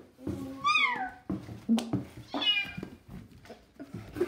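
Domestic cat meowing twice, each call falling in pitch, with a sharp click between them.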